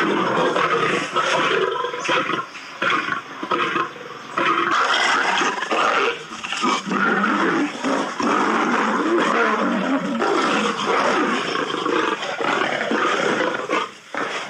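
Male lions growling and snarling as they fight: a rough, almost unbroken run of growls broken only by short gaps.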